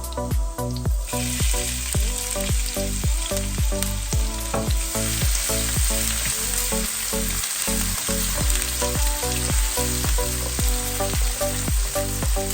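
Food frying in a pan: a steady sizzle that sets in about a second in and grows louder about five seconds in. Background music with a steady beat plays under it.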